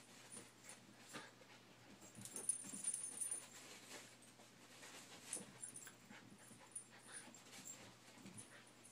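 Dogs play-fighting: faint scuffling and dog noises, louder for about a second around two and a half seconds in.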